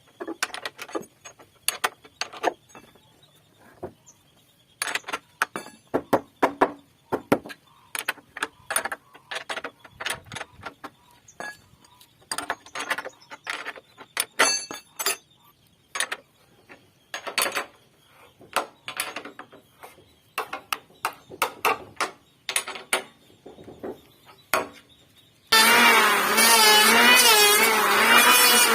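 Irregular sharp knocks and taps on wood, one to three a second with short pauses, as in hand-tool work on a timber beam joint. Near the end a loud continuous sound with a wavering pitch starts abruptly.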